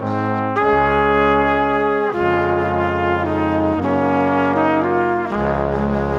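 Background music: slow, sustained chords that change about every second and a half.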